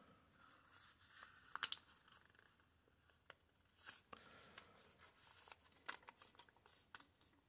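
Faint rustling and crackling of origami paper handled and creased by hand along pre-made fold lines, with a few short sharp crackles scattered through.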